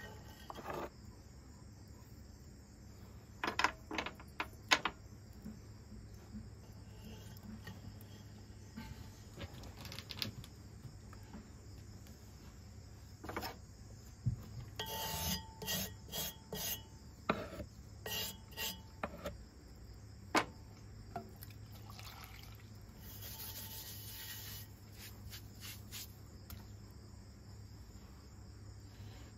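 Hand and wet sponge rubbing and scraping clay slurry off a pottery wheel head, with scattered clicks and knocks, over a low steady hum.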